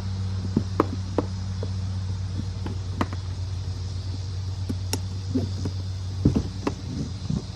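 Scattered clicks and light knocks of the kayak's corrugated polypropylene panels and fittings being handled during assembly, with a cluster of heavier knocks near the end, over a steady low hum.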